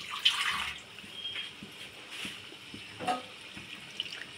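Water poured into a steel kadai of fish curry, a splashing pour with a short louder rush in the first second. A spoon clinks once against the metal pan about three seconds in.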